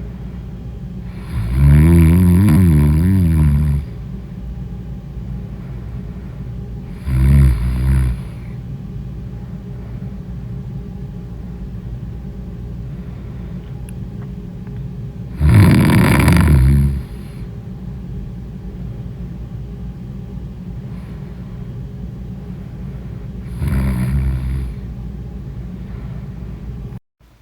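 A person snoring loudly in deep sleep: four long, wavering snores, each one to two and a half seconds, spaced roughly eight seconds apart, over a steady low hum.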